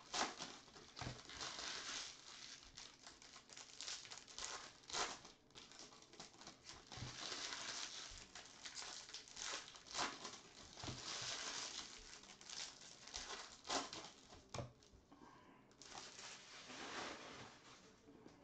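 Plastic foil wrappers of baseball card packs being torn open and crumpled, in irregular bursts of crinkling with sharp crackles.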